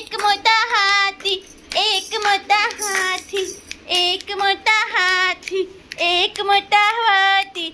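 A high-pitched voice singing a children's rhyme in short phrases with held notes and brief breaths between them.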